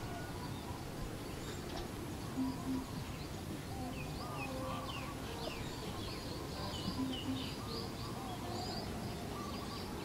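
Wild birds chirping and singing over a steady outdoor hiss, with a quick run of short high chirps in the middle.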